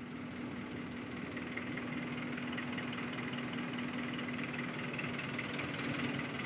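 Ferry's engine running steadily: a constant hum over an even wash of mechanical noise.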